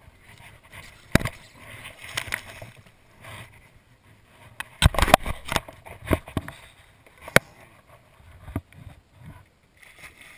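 A hooked fish splashing at the surface beside a small boat, with a series of sharp knocks and clicks, thickest about halfway through.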